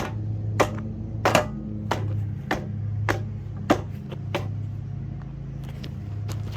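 Lasko box fan motor running with a steady low hum, while sharp clicks come roughly every half second or so, thinning out after about four seconds.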